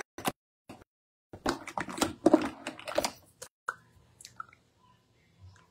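Close rustling and crackling right at the microphone: a few single clicks, then a dense run of clicks for about two seconds, then a few faint ticks.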